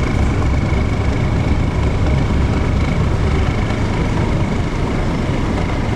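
Steady low rumble of a passenger ferry's engines running at slow speed, with a thin steady whine above it.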